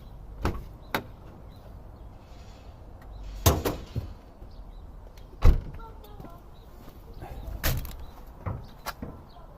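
A series of separate clunks and knocks from car doors being opened and shut, about eight in all, the loudest a little past halfway.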